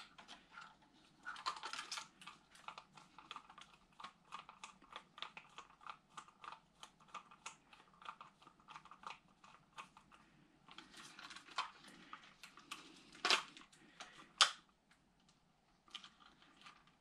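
Irregular light clicks and taps of a small hand tool working on small metal parts as a screw is driven in and tightened, with two sharper clicks about two-thirds of the way through.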